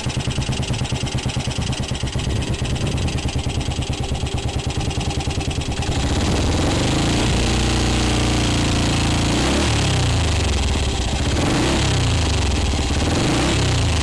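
Motorcycle engine running with an even, rapid pulse, then revved up and down several times from about six seconds in.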